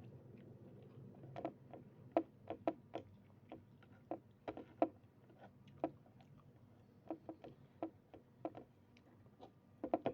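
Eating sounds: a series of short, sharp clicks and smacks, a few a second in irregular clusters, as food is eaten.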